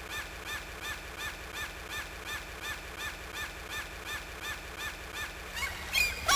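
Gull calling in a rapid, evenly spaced series of short calls, about three a second, with a few louder, longer calls near the end.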